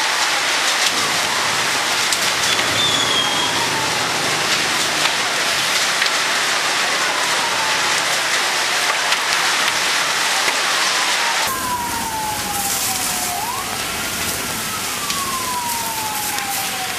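Emergency siren wailing, a slow falling sweep that jumps back up every three seconds or so, over a steady rushing hiss with scattered crackles. The sound changes abruptly about two-thirds of the way in, and the siren is clearer after that.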